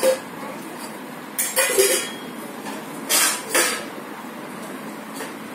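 Small pieces of a toy gun set clinking and rattling as they are handled, in a few short bursts: one at the start, a cluster about a second and a half in, and two more around three seconds in.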